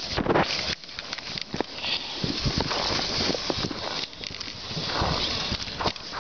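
Kick sled runners hissing and scraping over packed snow as the sled is pulled along by dogs, with irregular knocks and bumps from the sled.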